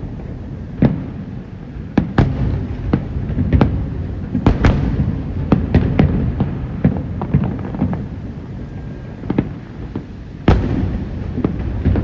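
Aerial fireworks bursting: irregular sharp bangs, sometimes several in quick succession, over a continuous low rumble of further explosions. The heaviest bangs come about 2 seconds in, midway and near the end.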